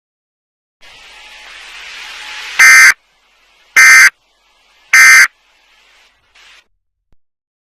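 Emergency Alert System end-of-message signal: three short, harsh digital data bursts about a second apart, closing the alert. Before them a hiss grows steadily louder.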